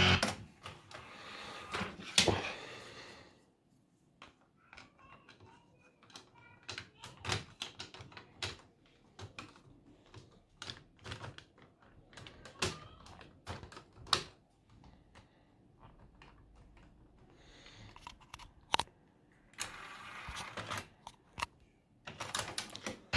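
Denon cassette deck stopped with a button press, then a run of small mechanical clicks and clatter as the cassette and its front loading mechanism are handled, with a brief whirr near the start and again near the end.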